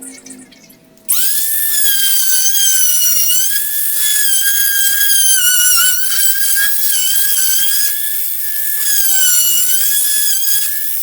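Handheld electric router starting up about a second in and running with a loud, high whine that dips slightly in pitch now and then as it cuts into the wooden board.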